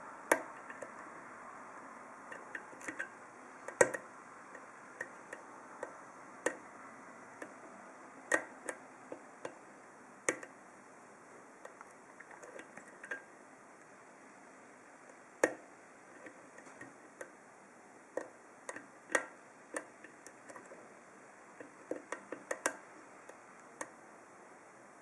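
Hook pick working the pins of a Best 7-pin interchangeable-core padlock: irregular sharp metallic clicks and ticks, some much louder than others, scattered throughout.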